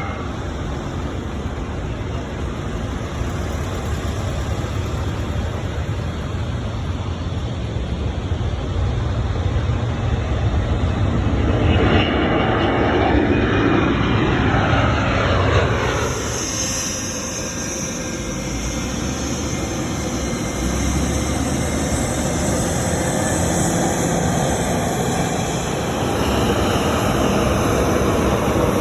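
Jet airliner engines heard as a plane passes: a steady, loud rush of engine noise, with a whine that falls in pitch from about twelve to sixteen seconds in as the aircraft goes by.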